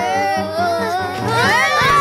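Cartoon background music with a steady low pulse. In the second half several high glides rise and fall over it.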